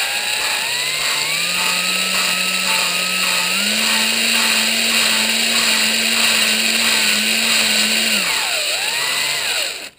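Power drill/driver in low gear spinning a valve against its seat in an aluminium cylinder head, lapping it in: a steady motor whine with a regular pulsing. The whine sags in pitch and picks up again near the end, then stops.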